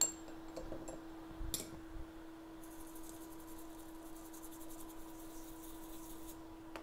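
Fine, rapid scratching for about four seconds, starting about two and a half seconds in, as the wet, freshly soldered iPhone logic board is worked over with cleaning liquid, after two small clicks; a steady hum runs underneath.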